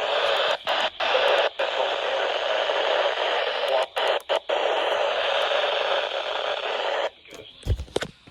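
Radio static: a steady hiss broken by a few brief dropouts, cutting off suddenly about seven seconds in. A few low thumps follow near the end.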